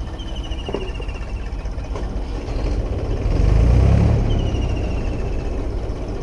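Tractor engine running steadily under load, driving a water pump, with a louder surge in its low rumble about three and a half seconds in.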